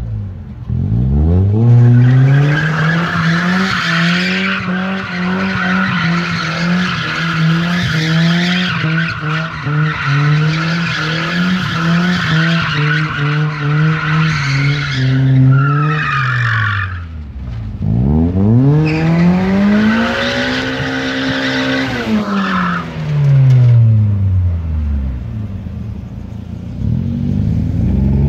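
Toyota Altezza RS drifting, its engine held at high revs with tyres squealing for about thirteen seconds. The revs then drop back toward idle, and a second, shorter burst of high revs and tyre squeal follows before the engine falls to idle again.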